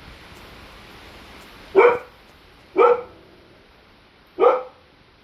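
Labrador retriever barking three times, each bark short and sharp, the second about a second after the first and the third about a second and a half later.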